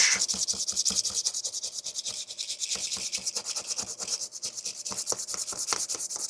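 Sandpaper rubbed by hand in quick, even back-and-forth strokes over a 3D-printed plastic claw, smoothing its rough edges and bumps.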